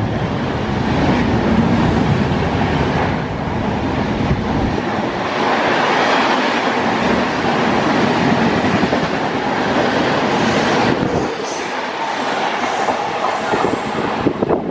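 An express passenger train running past at speed, its coaches' wheels loud on the track in a steady rush of noise with no horn. The deep rumble thins out about five seconds in.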